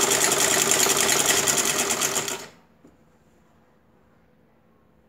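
Black old-style sewing machine running fast as it stitches through cotton fabric, a rapid, even mechanical rattle with a steady hum beneath it. It stops abruptly about halfway through.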